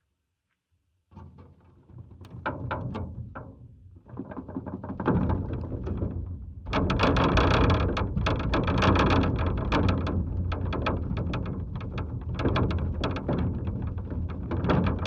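Factory machinery: dense mechanical clatter of rapid knocks and clicks that starts after a second of silence, builds up in steps over the next several seconds, then runs on loud and steady.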